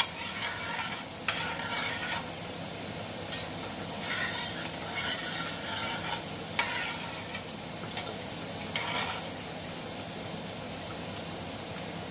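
Sliced onions sizzling in oil in a stainless steel skillet, stirred with a metal slotted spoon that scrapes and clinks against the pan. The stirring stops about nine seconds in, leaving only the steady sizzle.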